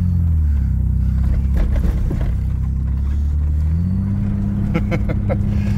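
Vehicle engine running under way with a steady low drone that steps up in pitch about four seconds in as it speeds up. A few short rattles or knocks come near the end.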